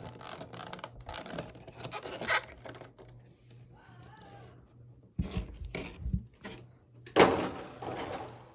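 A cardboard and plastic Pokémon TCG collection box being handled and opened, with short rustling and scraping strokes. A few low thumps come a little past the middle, and a louder rustle comes near the end.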